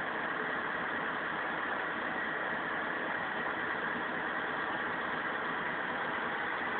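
Kato crane's diesel engine running steadily, heard from inside the operator's cab.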